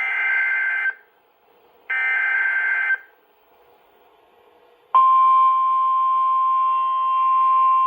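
Two one-second bursts of NOAA Weather Radio SAME digital header data, a buzzy warbling data tone, a second apart. About five seconds in, the steady 1050 Hz Weather Radio warning alarm tone starts abruptly and holds. Together they open the station's Required Weekly Test.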